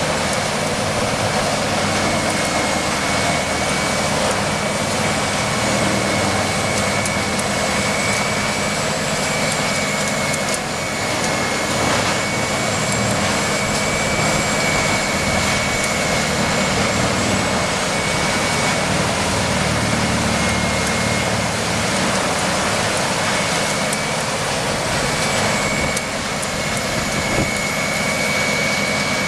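Heavy machinery running steadily: a dense, continuous mechanical noise with a constant high-pitched whine over it.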